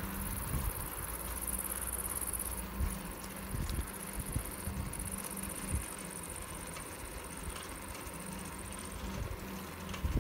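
Riding a bicycle along a paved path: a low rumble of wind and rolling on the phone's microphone, with a few short bumps from the ride and a steady high-pitched hiss.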